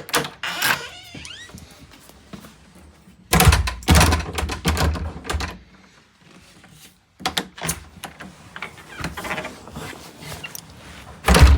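Thuds and clicks of a door fitted with a rim night latch being worked and shut against its frame: a heavy thud about three seconds in, another sharp one near the end, and lighter metallic clicks of the latch and lock parts in between.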